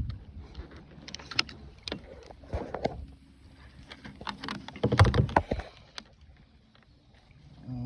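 Irregular knocks, clicks and rustling of handling on a kayak while a fish is being played, with a louder cluster of knocks about five seconds in.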